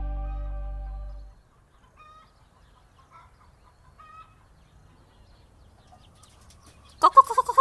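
Chicken clucking loudly in quick repeated bursts, starting about seven seconds in. Before it, a few faint short bird calls, and at the very start the tail of a piece of music fading out.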